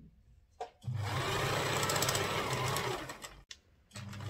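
Bernina electric sewing machine running as it stitches a seam through fabric: one steady run of about two and a half seconds that stops abruptly, then starts up again near the end.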